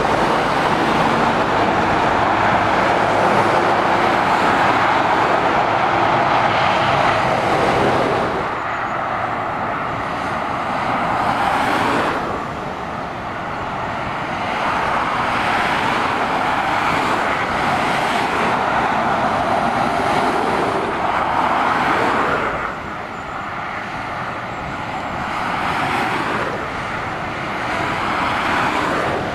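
Motorway traffic passing close by: lorries and cars going by one after another, their tyre and engine noise swelling and fading several times. A diesel lorry engine's low hum shows in the first several seconds.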